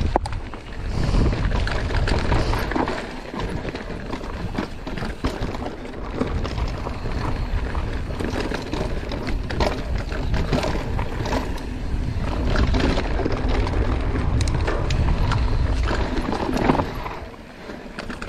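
Mountain bike riding fast over a rocky dirt trail: tyres crunching over gravel and stones, with frequent clicks and rattles from the bike over bumps and a steady low rumble of wind on the microphone. It quiets briefly near the end.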